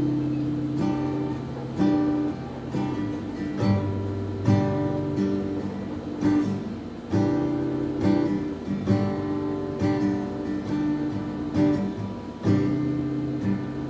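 Acoustic guitar strummed chords ringing, with a strum stroke about once a second and the chord changing every few seconds.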